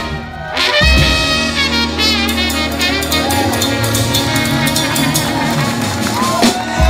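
Live band with trumpet, saxophone, drums, bass and keys playing. Two sharp ensemble hits come at the start, then a long sustained chord with horn lines over it, and another hit near the end.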